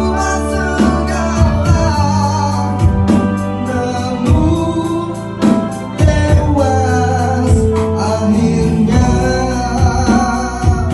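A small band plays a slow song on electronic keyboard, electronic drum kit and bass guitar, with a man singing the melody over a slow, steady drum beat.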